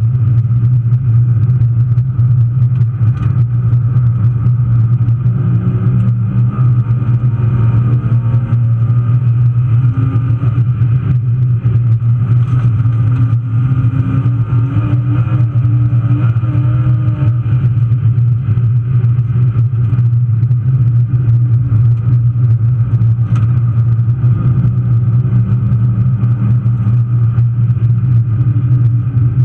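BMW 325i's straight-six engine running hard, heard from inside the car: a loud, steady low drone, its pitch rising and falling a little in the middle.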